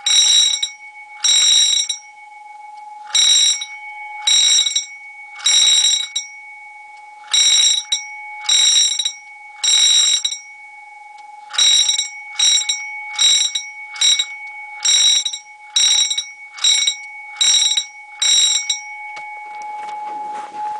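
Wheelock electric alarm bells ringing in short bursts of about half a second to a second, switched on and off over and over with uneven gaps, stopping about 19 seconds in. A steady faint whine runs underneath.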